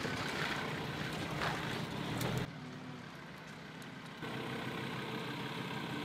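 Pickup truck driving past, its engine and tyres loudest for the first two and a half seconds and then dropping away. After about four seconds a steady engine-like hum carries on.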